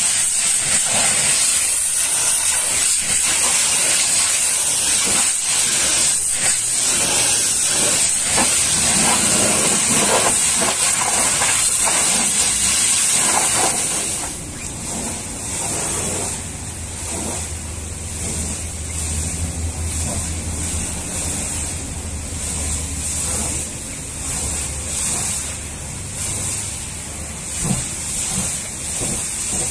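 High-pressure water jet from a pressure washer hissing steadily as it blasts a truck tyre and wheel. About halfway through, the hiss drops to a softer level, with a steady low hum underneath.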